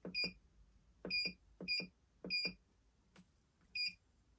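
Keypad of a three-axis digital readout console beeping with each button press: several short, identical electronic beeps, each with a soft key click, spaced unevenly as the keys are pressed to leave the setup menu.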